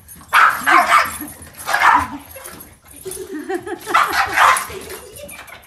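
Dogs barking excitedly in play: a handful of short, loud barks, with a quicker run of higher yelps in the middle.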